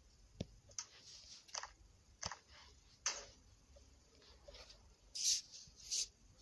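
A run of irregular small clicks and short rustling noises, about eight in all, the loudest two near the end.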